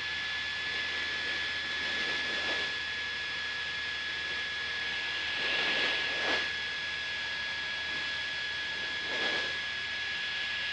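Cabin drone of a Cessna 172 Skyhawk in level flight: its propeller-driven piston engine running steadily, with a steady high whine over it and a few faint swells.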